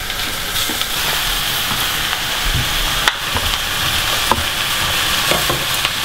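Onions, garlic and asparagus frying in low-calorie spray oil in a stainless saucepan, a steady sizzle that gets a little louder about half a second in as raw beef mince is tipped in from its plastic tray. A few sharp clicks and taps sound over it.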